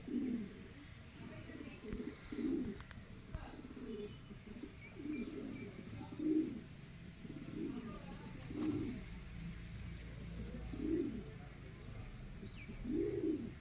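Domestic pigeons cooing: a run of low coos, each rising then falling in pitch, repeating roughly every second.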